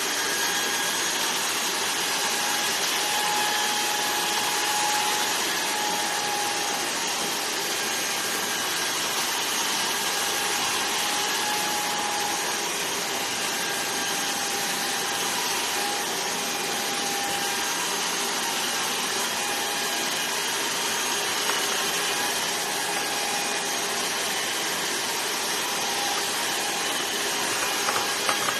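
Electric hair clippers running steadily with a constant motor whine, shaving a head.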